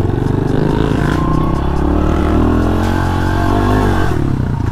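Honda CRF110 pit bike's small single-cylinder four-stroke engine running steadily under throttle as the bike is ridden, its pitch rising and falling slightly.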